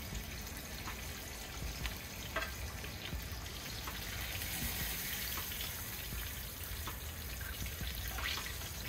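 Hot frying oil in a deep pot sizzling steadily, with scattered small crackles.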